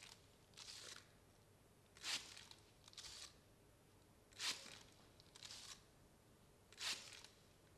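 Faint, evenly repeating hiss-like bursts: a short, sharp burst about every two and a half seconds, each followed about a second later by a softer, longer hiss.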